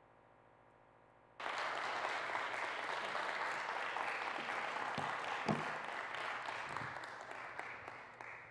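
Audience applauding, starting suddenly about a second and a half in and dying away near the end. Before it there is only a faint steady hum.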